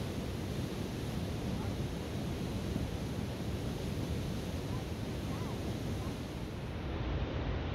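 River rapids rushing steadily, a constant wash of white water, with wind buffeting the microphone.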